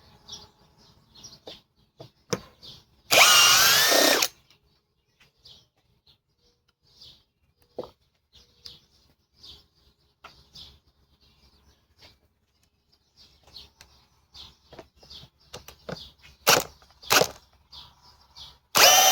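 Ridgid high-torque cordless hammer drill running in reverse to back a fastener out of wood. The motor whines for about a second, its pitch wavering under load, and the drill struggles with this one. Scattered clicks and knocks follow, and the drill starts running again near the end.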